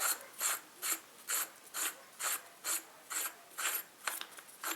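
Ratchet wrench unscrewing a threaded part of a hydraulic jack, clicking in even strokes about two a second.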